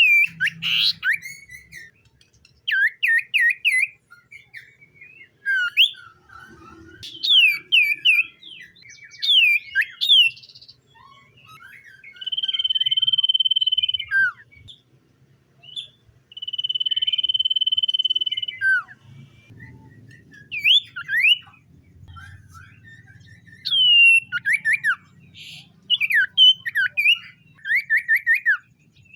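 Common iora singing: bursts of quick, falling chirps and trills, broken by two long, steady whistled notes of about two seconds each, a little under halfway through.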